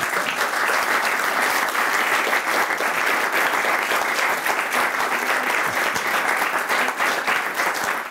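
Audience applauding, a dense steady clapping that cuts off abruptly at the very end.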